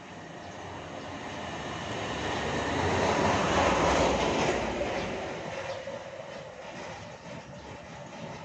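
A vehicle passing by: a steady rushing noise that grows louder, peaks about four seconds in, then fades away.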